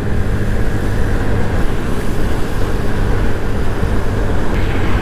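Wind rushing over the microphone of a Honda Scoopy scooter on the move, with the scooter's small single-cylinder engine running steadily underneath.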